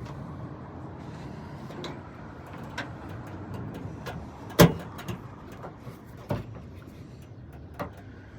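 Hand work on a pickup truck's tailgate latch: scattered clicks and knocks of plastic and metal parts being handled, with one loud sharp clack about halfway through.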